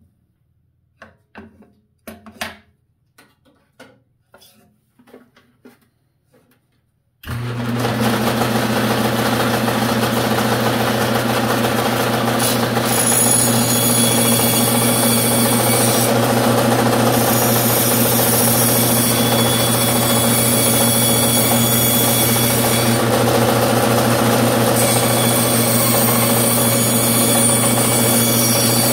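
A few light taps and knocks as a piece of scrap wood is handled on the saw table. About seven seconds in, a bandsaw starts abruptly and runs steadily with a constant hum as its blade cuts through the wood.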